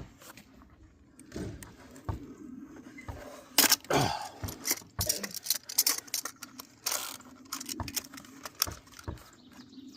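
Metal hand tools clinking and scraping as an oil filter wrench turns a tight motorcycle oil filter loose, with irregular clicks and a few sharper clatters, the loudest a little under four seconds in and again around seven seconds.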